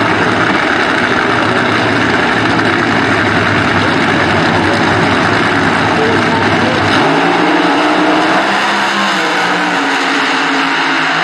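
Two drag-racing funny cars' engines running loud at the starting line, then both cars launching and pulling away down the track, the sound changing about seven seconds in.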